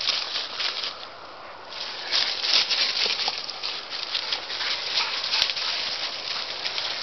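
Dry fallen leaves and grass rustling and crunching under running feet, in an irregular crackle.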